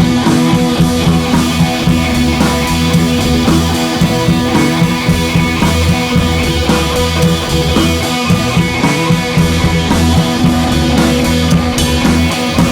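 Background rock music with guitar and drum kit, playing steadily with a regular beat.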